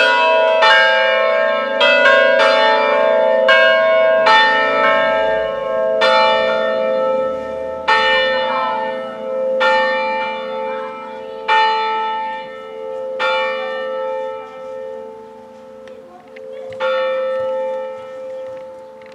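Three-bell church peal tuned in A, cast by Angelo Bianchi in 1945, ringing a distesa: the bells swing full and are struck by their clappers, each strike ringing on over a steady hum. The strikes thin out from several a second to one every second and a half or two as the bells slow to rest, with a last lone strike near the end.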